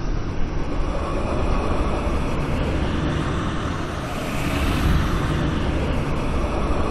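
Designed sci-fi whoosh: a smooth, airy swoosh over a low rumble, swelling to a peak about four to five seconds in and easing off again like a slow flyby.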